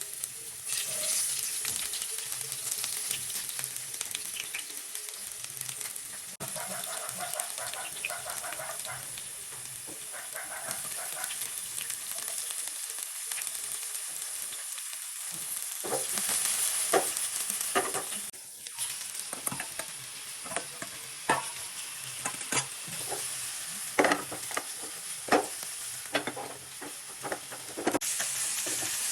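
Chow mein sizzling as it is stir-fried in a hot pan, a steady frying hiss. A spatula knocks and scrapes against the pan, the clanks coming more often in the second half.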